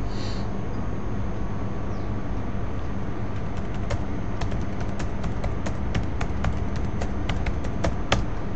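Typing on a computer keyboard: a run of irregular key clicks starting about three and a half seconds in, ending with one louder keystroke, over a steady low hum and hiss.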